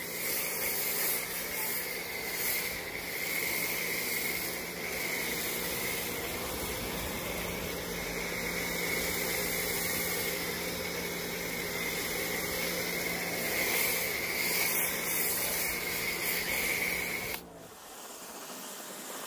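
Pressure washer running through a foam cannon, spraying soap foam onto a car: a steady spray hiss over a motor hum and a high whine. All of it cuts off suddenly near the end.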